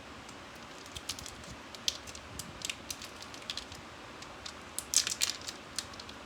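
Small sharp clicks and crackles from handling the plastic and metal parts of a tire plug repair kit, with a louder cluster of clicks about five seconds in.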